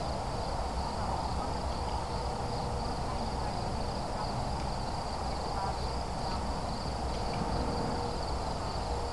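A steady chorus of insects: a continuous high, finely pulsing trill over a low background rumble.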